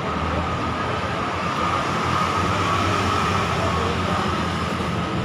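A train passing close by: steady running noise of the rail cars with a steady high-pitched whine held throughout.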